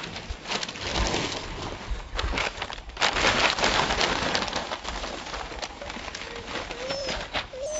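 Rottweiler–Australian Shepherd mix puppies scrambling over newspaper bedding: dense rustling and crackling of paper, loudest about three seconds in, with a short wavering whimper near the end.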